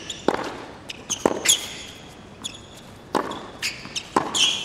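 Tennis ball on a hard court: sharp pops of the ball bouncing and being struck by rackets, spaced about a second apart, with short high squeaks of sneakers on the court surface.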